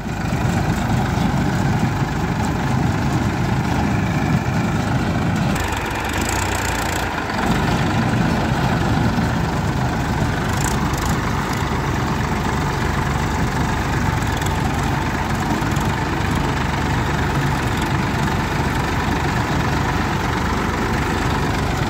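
Two diesel tractor engines running steadily, a Massey Ferguson 241 working a mitti (soil) loader machine beside a Mahindra 415, with the deeper engine sound dipping briefly about six seconds in.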